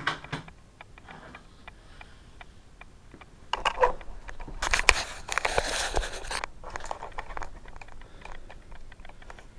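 Crackling, rustling handling noise with scattered clicks, loudest for about three seconds in the middle.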